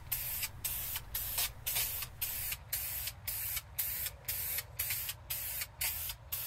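Aerosol can of automotive filler primer spraying in short hissing bursts, about two a second, stopping right at the end.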